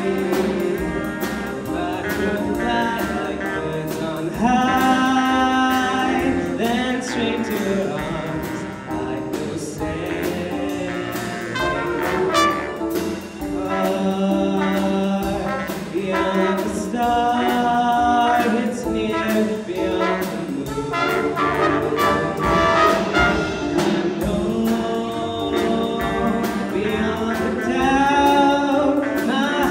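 A jazz band of saxophones, trombones, trumpet, electric guitar, electric bass and drum kit playing a song, with a vocalist singing into a microphone over the band.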